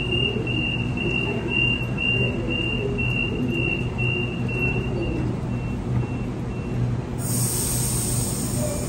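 Door warning beeps of a Sydney Trains double-deck electric train: a steady series of high beeps, about two a second, fading out after about six seconds over the train's low hum at the platform. About seven seconds in a steady hiss of air starts.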